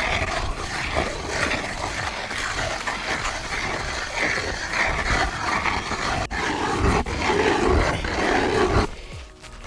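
Ice auger boring a hole through lake ice, a continuous loud grinding roar.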